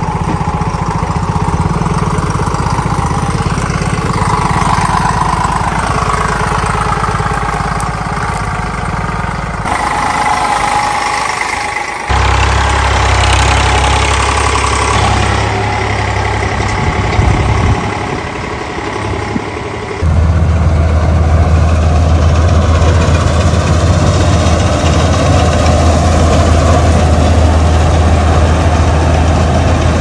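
Diesel farm engines running, in several cuts with sudden jumps in level: an Eicher tractor pulling a loaded trailer, then a combine harvester. The combine, from about two-thirds in, is the loudest part, with a strong low hum.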